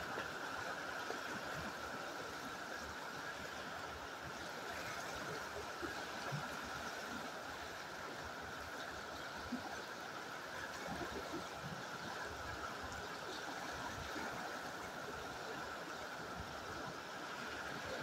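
Fast-flowing river water rushing steadily over rocks.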